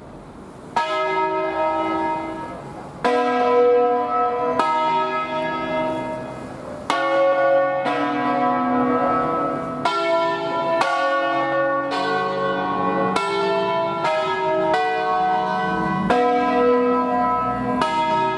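Ring of five church bells cast by the Barigozzi brothers in 1937, tuned in B, swung full circle on their wheels by ropes in the Ambrosian style. The first stroke comes about a second in, the next few a couple of seconds apart, then they strike about once a second, each bell ringing on under the next.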